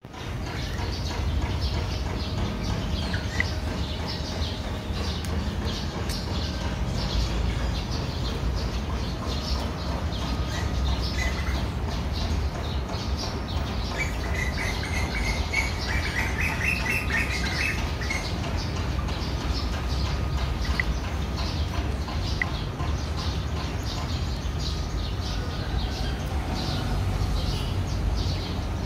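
Small birds chirping over a steady low rumble, with a busier run of chirps about halfway through.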